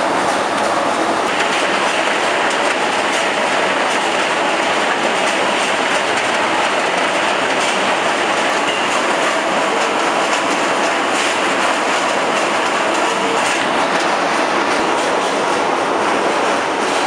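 Chestnut sorting line running: a loud, steady mechanical clatter from the conveyor belt and machinery, with chestnuts rattling along the belt. The noise grows slightly brighter about a second in.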